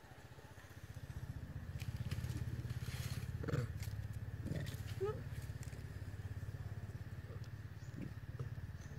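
A steady low engine hum that gets louder about a second and a half in, with dry leaves rustling underfoot and a few short rising squeaks in the middle.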